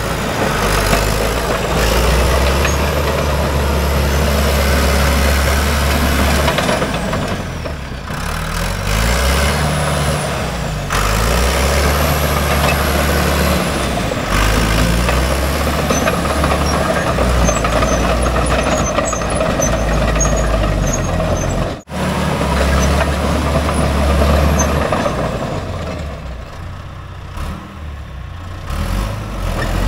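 John Deere 450G crawler dozer's diesel engine running as the machine drives across gravel on its freshly rebuilt transmission. A high whine rises and falls several times over the engine. The sound breaks off for an instant about two-thirds of the way through.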